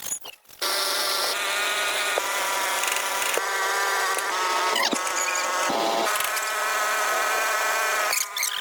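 Handheld electric power tool running with a steady high-pitched whine, starting about half a second in and dipping briefly near the end.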